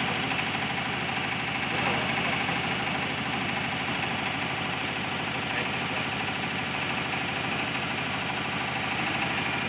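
Kubota diesel engine running steadily at an even idle-like speed, a constant low mechanical drone, the generator powering the amplifier rack.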